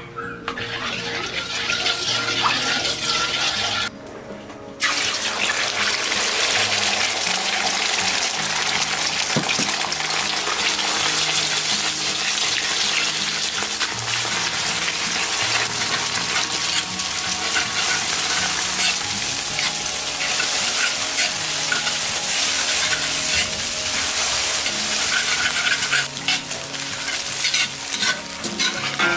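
Beaten eggs sizzling loudly in hot oil in a wok while a metal spatula stirs and scrapes them into small scrambled pieces. There is a short break about four seconds in.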